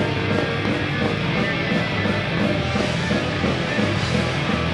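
Punk rock band playing live, a loud, guitar-driven song with a steady beat.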